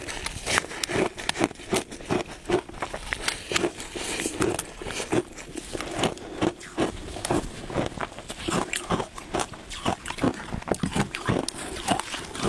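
Shaved ice being bitten and chewed close to the microphone: an irregular run of sharp crunches, about two or three a second.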